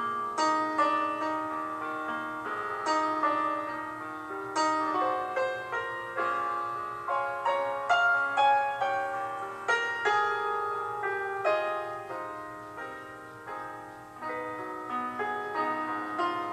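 Background piano music: notes and chords struck one after another, each ringing on and fading.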